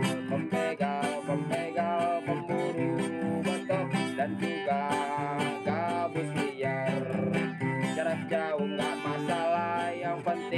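Background music: a plucked guitar tune with many quick notes.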